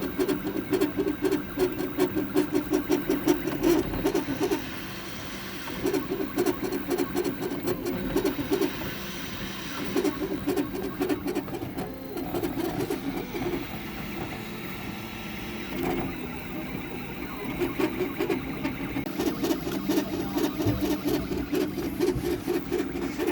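3D printer's stepper motors buzzing as the print head and bed move, in runs of a few seconds with short pauses between moves.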